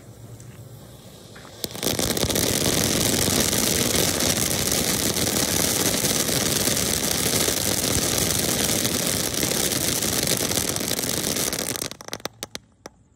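Crackling peacock ground-fountain firework going off about two seconds in: a loud, dense, continuous crackling for about ten seconds. It thins out near the end into a few last sharp pops.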